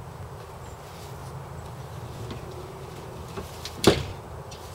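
Boat helm seat and its mounting hardware handled by hand: a few faint ticks, a small click, then one sharp knock about four seconds in, over a steady low hum.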